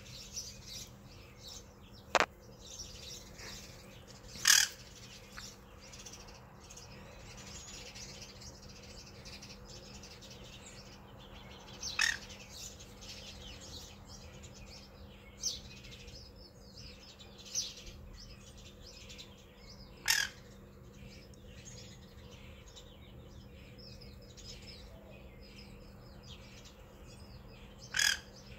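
Many sparrows chirping and chattering without a break. Over them a parrot close by gives several loud, short calls a few seconds apart.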